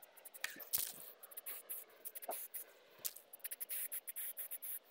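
Aerosol can of heat-resistant silver spray paint hissing in short bursts, thickest in the second half, with small clicks and taps in between.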